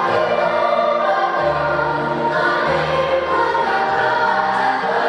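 Children's choir singing in harmony, over low bass notes of an accompaniment that change about once a second.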